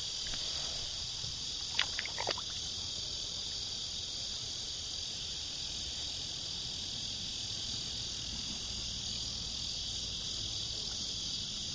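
Steady high-pitched chorus of insects chirping, unchanging throughout, with a low steady rumble beneath. A couple of short sharp sounds stand out about two seconds in.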